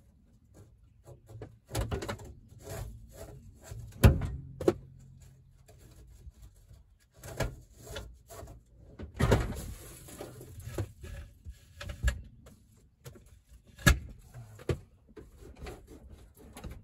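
Clunks, knocks and scraping of a heavy Logan metal lathe being shifted and slid down while it is lowered. Several sharp knocks, the loudest about four seconds in, and a longer scrape around nine seconds in.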